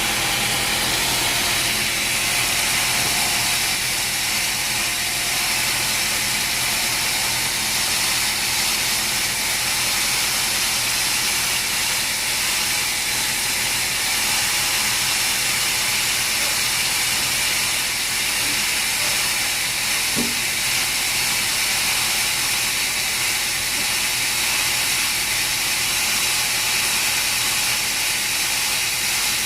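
Sawmill machinery running steadily, a continuous hissing noise with a faint knock about twenty seconds in.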